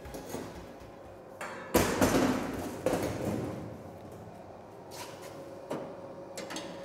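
A few metal clanks and knocks from handling welding gear on a steel workbench: a loud pair about two seconds in and a lighter knock near the end.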